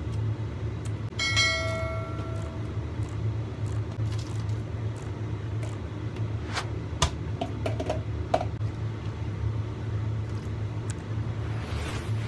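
Steady low hum, with a bell-like ding about a second in and a few light clinks and taps around the middle as ingredients are dropped into a clay pot of hot water.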